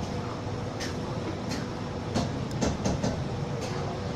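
Steady mechanical rumble with a faint hum, overlaid by scattered sharp clinks and clatter that grow busiest about two to three seconds in.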